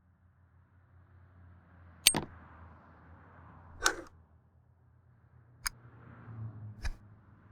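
Four sharp knocks spread over several seconds, the first the loudest about two seconds in, over a faint low steady hum.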